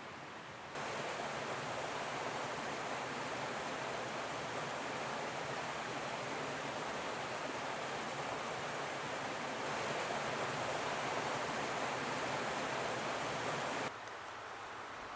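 Steady rush of running water, like a small stream, starting suddenly about a second in and cutting off near the end.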